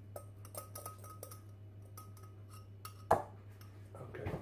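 Light clicks and taps of a plastic jug against a metal roasting tin as the last of the batter is poured out, with one sharper knock about three seconds in.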